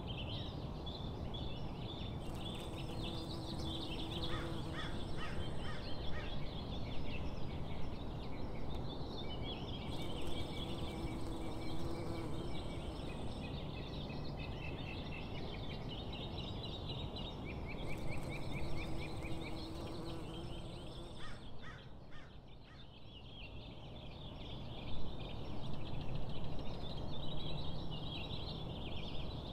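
Birds chirping and singing over a steady low outdoor background noise, which dips briefly about two-thirds of the way through.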